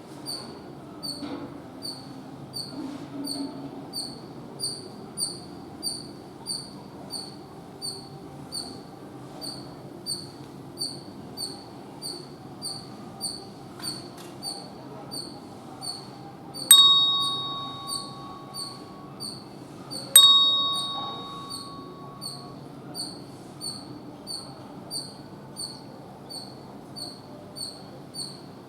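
Squirrel giving a long, steady run of short, high chirps, about two a second, the repeated call of an alarmed squirrel. Twice in the middle a bell-like ring sounds and dies away over a couple of seconds.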